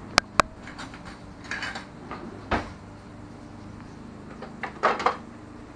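Kitchen utensil drawer being rummaged: two sharp clacks at the start, then utensils clinking and knocking against each other, a single knock about halfway through and a short burst of clatter near the end, over a steady low hum.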